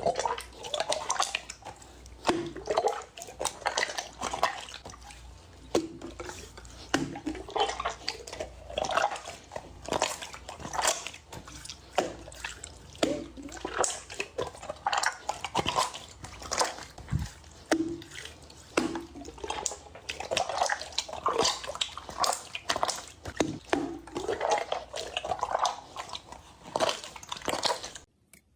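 Slime being squished and worked, giving an irregular stream of short wet pops and clicks, several a second.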